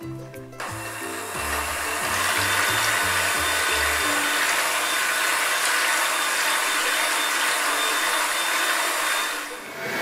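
Bosch electric hand mixer running steadily, its wire beaters whipping cream in a glass bowl toward stiff peaks: a loud, even whirr with a faint steady whine. It starts about half a second in and fades just before the end.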